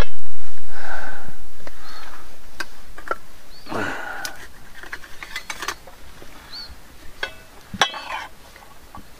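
Scattered clinks of steel plates, bowls and serving spoons as food is dished out, with a few short murmured voices and a bird's short high chirps repeating now and then.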